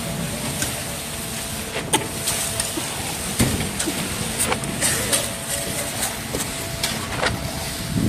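Concrete mixer pump running steadily as concrete is pumped out through the delivery hose. A few irregular sharp knocks sound over it.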